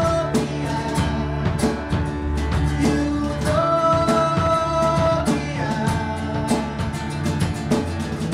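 Live band playing: drum kit, acoustic guitar and violin, with regular drum hits under the music. A long steady melody note is held for a couple of seconds midway, followed by another, lower held note.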